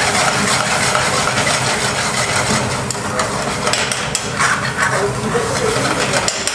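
Tomatoes frying in spiced oil in an aluminium pan over a gas burner, sizzling as a metal spoon stirs them and scrapes and knocks against the pan, over a steady low hum.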